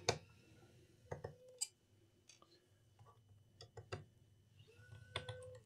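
A handful of faint, separate clicks and ticks of a screwdriver working the screws on a laptop's plastic bottom cover.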